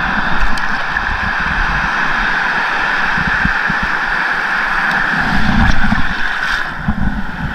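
Sea water sloshing and splashing around a wading angler, with wind on the body-worn camera's microphone, a steady loud hiss with irregular low thumps. A bigger surge of water comes close to the camera about six seconds in.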